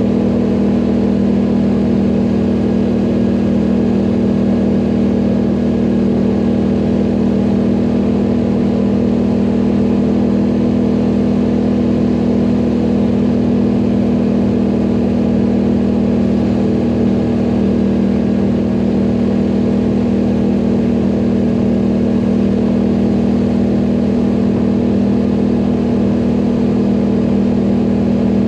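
ATV engine running steadily under way, its pitch holding even throughout.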